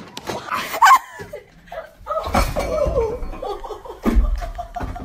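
A group of young people laughing and shrieking, with a few heavy thumps.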